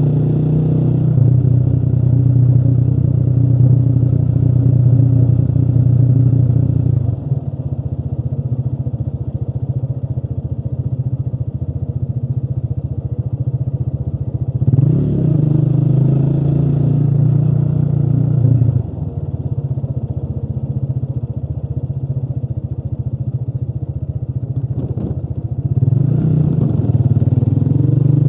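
Motorcycle engine heard from the bike while riding: it pulls hard at the start, eases off about a quarter of the way in, accelerates again about halfway through, eases off again, and picks up once more near the end.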